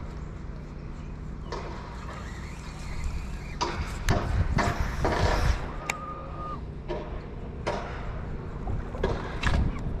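Sounds from a fishing boat: a steady low hum under scattered knocks and handling clatter. A louder rush of noise comes about four to five seconds in, and a short steady beep follows near six seconds.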